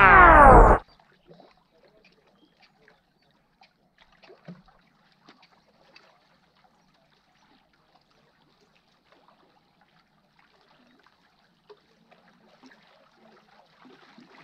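Loud electronic music with a falling sweep, cut off under a second in; then faint small water lapping against shore rocks, with scattered small clicks.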